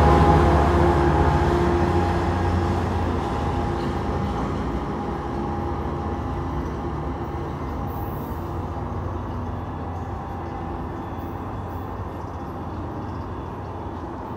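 A passenger train moving away into the distance, its low rumble and steady tones fading gradually.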